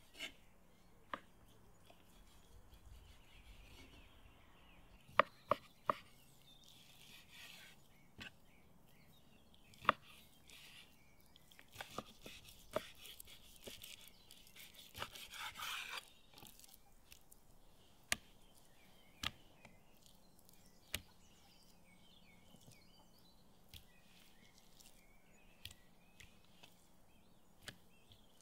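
Large chef's knife cutting raw meat on a wooden cutting board: scattered sharp knocks of the blade striking the board every second or few seconds, with a short stretch of slicing about halfway through.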